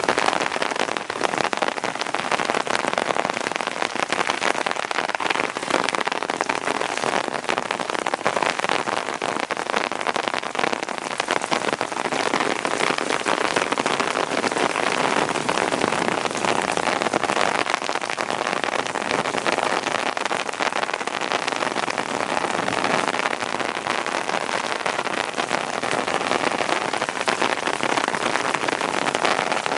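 Heavy rain falling steadily, a dense patter of drops on hard surfaces during a thunderstorm.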